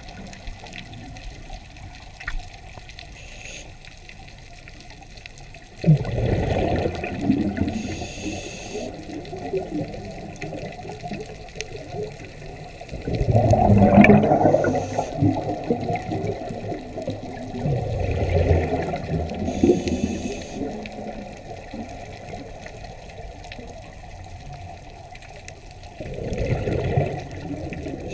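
Scuba diver breathing through a regulator, heard underwater: about four gushes of exhaled bubbles, one every six or seven seconds, the loudest about halfway through, over a steady low hiss.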